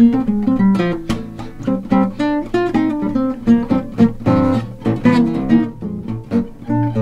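Eight-string acoustic guitar played solo: a continuous run of plucked chords and melody notes over low bass notes.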